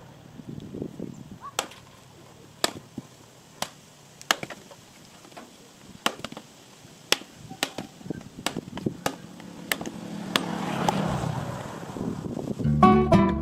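A knife blade chopping into wood: sharp, single strikes spaced irregularly, about one a second. A swelling rush of noise follows, and guitar music starts near the end.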